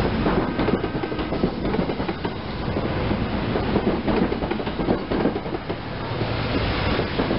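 SEPTA Silverliner IV electric multiple-unit railcars passing close by: steel wheels running on the rails with a steady rush and repeated clicks.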